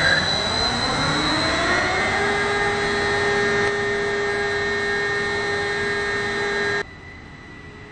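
Electric hoist drive of an STS tandem container crane: the motors and winch gearbox run up to speed with a whine that rises for about two seconds, then holds steady at several pitches. The sound drops off sharply about seven seconds in.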